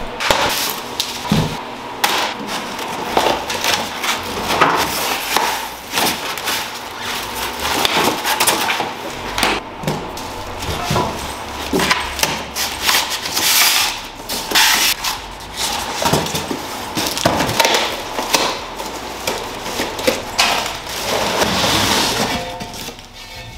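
Cardboard shipping boxes being unpacked: packing tape slit, cardboard flaps torn and crumpled, and plastic wrap and foam packing rustling and knocking as gumball machine parts are pulled out.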